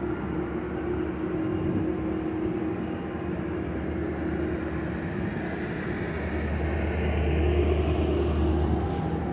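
Metrolink bilevel passenger coaches rolling past as the train pulls away from a station stop: a steady rumble of steel wheels on the rails with a constant hum. The deep rumble swells for a few seconds near the end.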